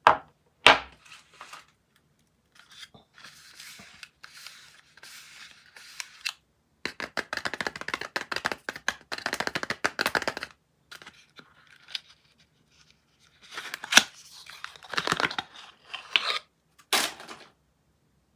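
Soap packaging being unwrapped by hand: bursts of crinkling and tearing wrapper, densest in a long stretch midway, with a few sharp clicks and taps between them.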